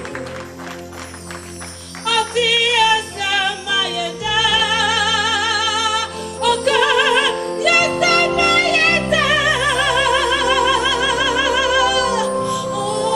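Live gospel music: a band accompaniment with steady low notes, and from about two seconds in a woman's voice singing long, high held notes with heavy vibrato, without words.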